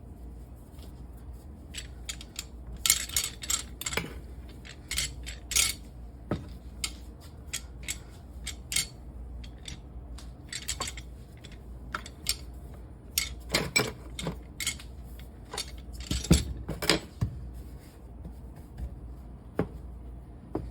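Kitchen utensils and dishes clinking and knocking on a countertop, in scattered sharp taps and clacks with short quiet gaps between them.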